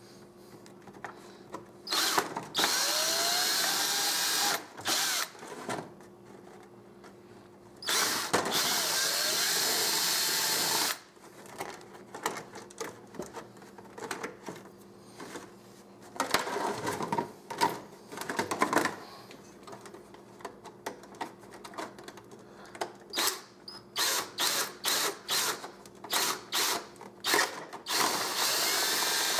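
Power drill with a 5/16-inch bit drilling holes in a plastic RC truck body, run in several separate bursts. The motor spins up with a rising whine about two seconds in. Near the end the trigger is blipped in many quick short pulses.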